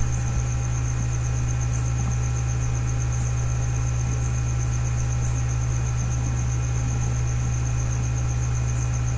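Steady electrical mains hum with a faint high whine above it, unchanging throughout.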